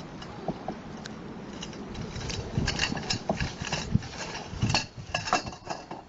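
Irregular light clicks and clinks of hard objects knocking together, more frequent from about two seconds in.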